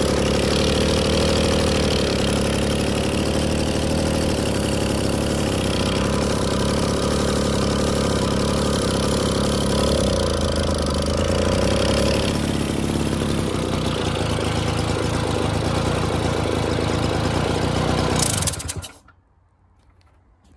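Small two-stroke engine of a 1956 Rhonson moped idling steadily, then cutting out abruptly near the end and falling silent.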